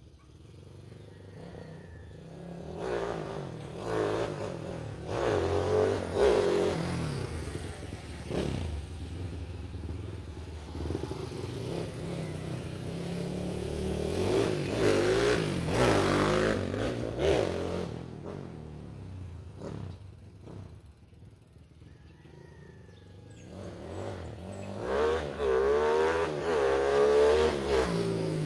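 Kawasaki KLX 150L's single-cylinder engine, built up with an XRM 125 four-valve head and a 70 mm forged piston, being revved in three bouts: a few seconds in, about halfway, and near the end, with the pitch rising and falling each time.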